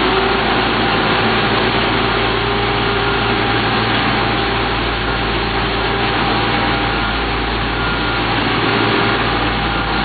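Engines of an asphalt paver and the dump truck unloading asphalt into it, running steadily together as they creep forward: a continuous engine noise with a few held tones over it.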